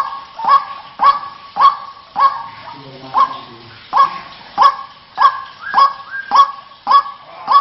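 White-breasted waterhen (ruak-ruak) calling: a loud, harsh call repeated steadily, a little under two a second, the kind of recording played as a lure to draw waterhens in.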